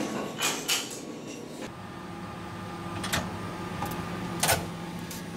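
Sharp clicks of a metal-framed glass door's latch and handle as the door is pushed open, the loudest near the end, over a steady low hum. A pair of similar clicks comes about half a second in.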